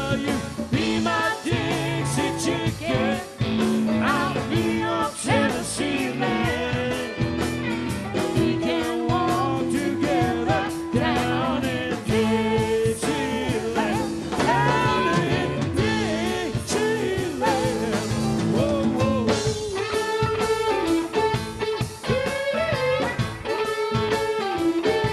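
Live rock band playing a bluesy number on electric guitars, keyboards, bass and drum kit, with bending lead lines over a steady beat.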